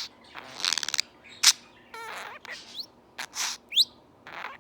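Budgerigar imitating sniffles: a string of short, hissy sniffing sounds, one a buzzy rattle about half a second in. Between them come a warbling chirp about two seconds in and a quick rising whistle near the end.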